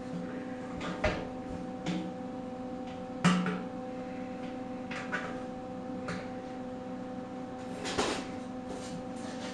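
Scattered handling knocks and clunks, about six, the loudest about three seconds in, as a camera is moved about against a welded steel fuel tank, over a steady electrical hum.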